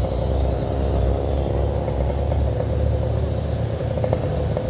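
Yamaha RX-King's two-stroke single-cylinder engine running steadily under way, with low wind rumble on the microphone.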